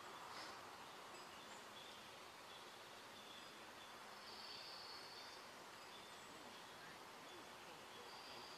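Near silence: faint outdoor ambience with a few faint high-pitched calls, the longest lasting about a second around the middle.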